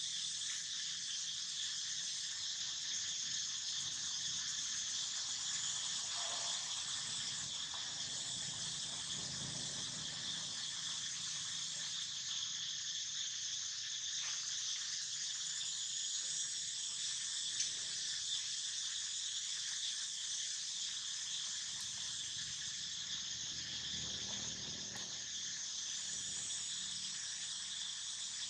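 Steady, high-pitched chorus of insects, unbroken throughout, with a few faint low rustles beneath it.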